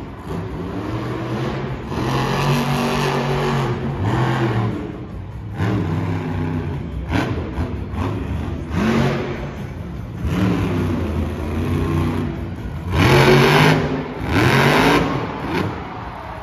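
Monster truck's supercharged V8 engine revved again and again, the pitch climbing and falling back several times, loudest near the end.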